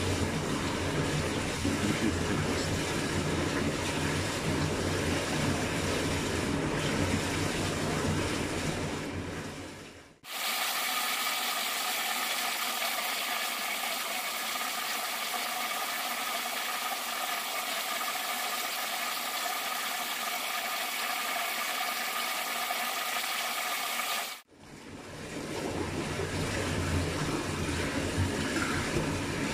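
Indoor swimming-pool hall ambience: water sounds over the hall's steady low hum. For a long stretch in the middle it switches abruptly to a thin, high-pitched hiss of splashing with no low end, the sound of a sped-up freestyle swim, then back to the pool-side ambience.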